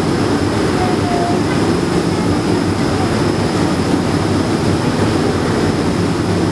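Ferry at cruising speed: a steady, loud engine drone mixed with the rushing of the wake churning behind the stern.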